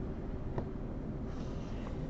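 Steady low background hum with one light click about half a second in and faint rustling handling noise toward the end.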